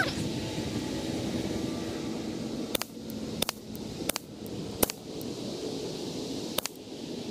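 A semi-automatic .22 LR Ruger 10/22 with a Shaw fluted barrel firing a string of shots: four sharp reports in quick succession a little under a second apart, then one more near the end, over a steady background hiss.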